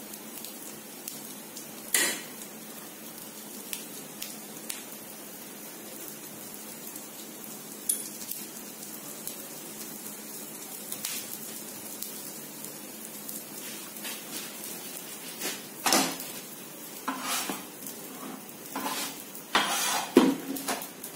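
Scattered clinks and knocks of a steel spoon and spatula against a plate, board and non-stick tawa, over a faint steady hiss. One sharp clink comes about two seconds in, and a cluster of louder knocks and scrapes comes over the last five seconds.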